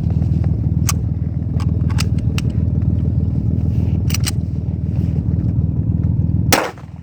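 Steady low rumble of an idling vehicle engine, with a few sharp metallic clicks as the pistol is handled to clear a failure to eject. Near the end a louder sharp crack, after which the rumble drops away briefly.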